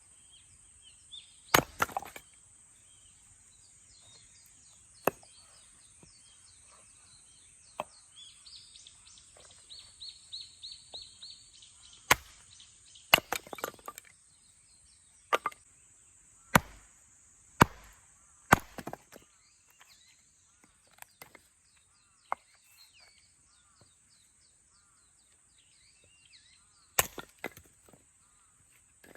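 Husqvarna hatchet chopping and splitting firewood: about ten sharp chops at irregular intervals, some in quick pairs, with birds chirping faintly between the strikes.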